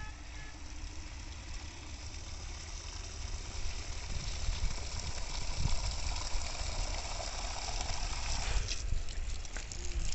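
Vehicle engine running steadily under a broad rushing noise, with a heavy, uneven low rumble; the rushing thins out near the end.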